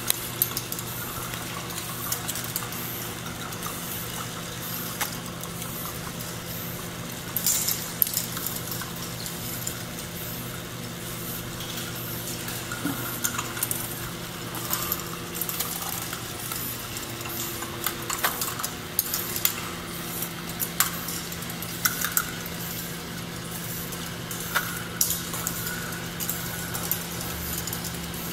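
A K'NEX ball machine running: balls click and rattle along the plastic tracks and around a big funnel, with irregular sharp clacks over a steady motor hum.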